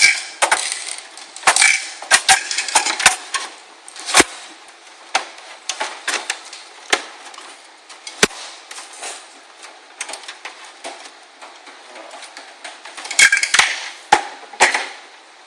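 Irregular clicks, knocks and clatter of computer parts and metal being handled inside a PC case during assembly, busiest in the first few seconds and again near the end.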